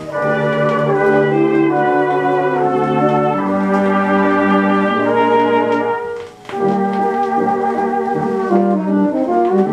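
1927 dance-orchestra recording played from a 78 rpm record: the band plays sustained chords, with a brief break about six seconds in before it comes back in.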